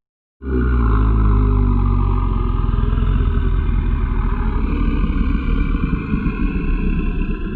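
Designed monster creature growl: one long, low, rattling growl that starts about half a second in and is held to the end.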